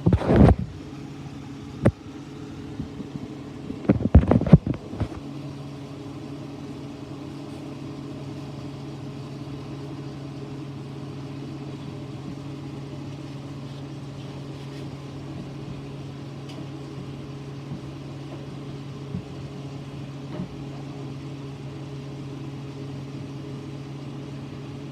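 Sliced vegetables being tipped and knocked into a pan of cooking chicken: a burst of loud clatter right at the start and another about four seconds in. Under it, a steady low hum holds unchanged.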